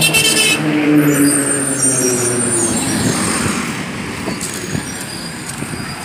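Street traffic: a motor vehicle's engine running close by and fading over the last few seconds, with a short hiss right at the start.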